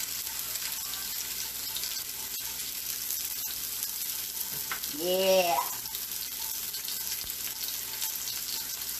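Peppers and onions frying in a pan, a steady sizzle. About five seconds in, a person makes a short vocal sound over it.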